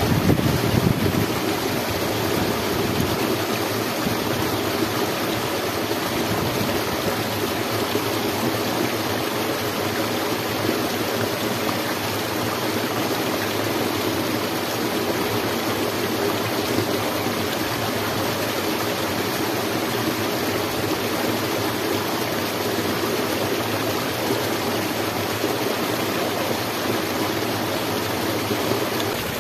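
Shallow mountain stream running over rocks: a steady, even rush of water, with a brief low rumble at the very start.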